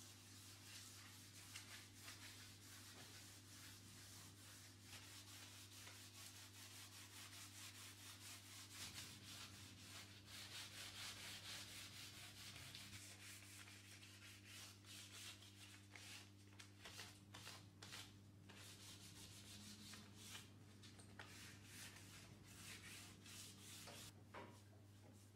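Faint hand sanding of a painted wooden door with a 220-grit pad: quick, light back-and-forth rubbing strokes over a steady low hum. It is a light sanding of the linseed-oil-painted surface.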